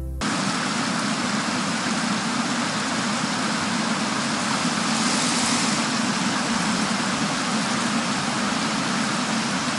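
Steady rushing of a fast stream running over stones, an even noise with no rhythm or pitch to it.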